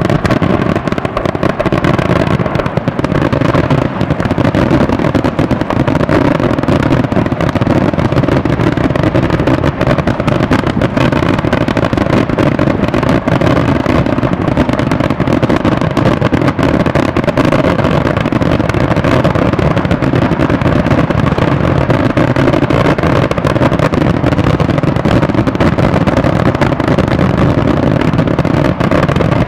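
Daytime fireworks going off in a continuous dense barrage, the many small reports and crackles running together into one steady, loud din without a pause.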